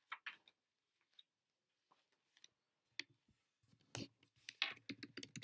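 A few faint, scattered clicks, then a denser run of clicks and light knocks starting about four seconds in, like small objects being handled.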